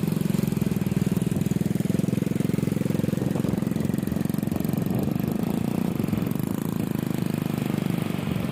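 Small motorcycle engine running steadily while riding along, with a fast, even putter.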